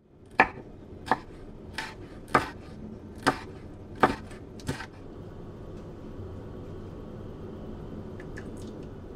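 Kitchen knife slicing red chili on a wooden cutting board: seven sharp knocks of the blade on the board, about one every two-thirds of a second, stopping about five seconds in.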